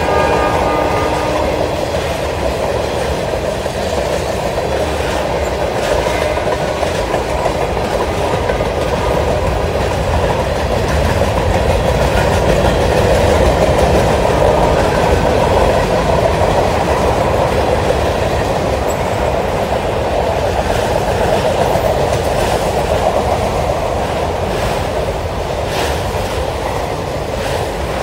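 Freight cars of a long train, including tank cars, covered hoppers and autorack cars, rolling past with a steady rumble and rattle of steel wheels on rail and a light clickety-clack.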